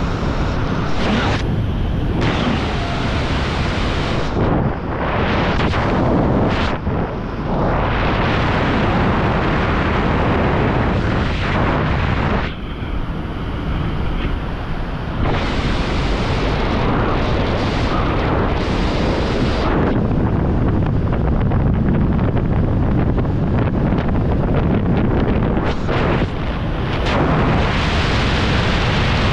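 Wind rushing hard over the camera microphone during a skydive, a loud, steady buffeting roar that dips briefly a few times.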